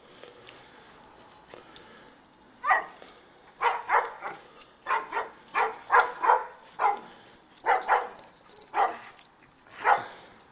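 A dog barking: about a dozen short, sharp barks in an uneven run, starting about two and a half seconds in.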